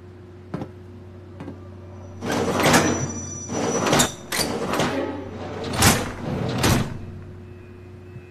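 Under a steady low hum, two faint footsteps sound on a metal deck. Then a run of about five loud, noisy rattling crashes comes over a few seconds.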